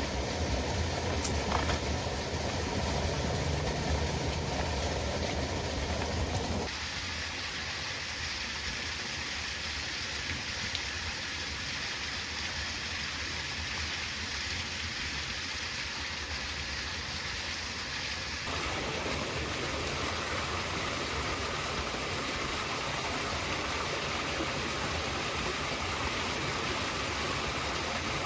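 Stream water running: a steady rushing whose sound changes abruptly twice, about seven seconds in and again near the middle.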